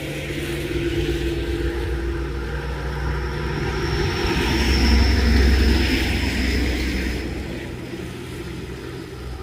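A motor vehicle passing close by in the rain: its engine hum grows to its loudest about five seconds in and then fades away, over the steady hiss of heavy rain.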